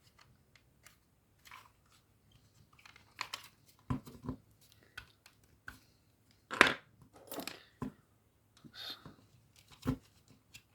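Hands working at the plastic casing of a digital TV receiver: irregular clicks, scrapes and rustles as its front panel clips are prised, with a few sharper knocks, the loudest about six and a half seconds in.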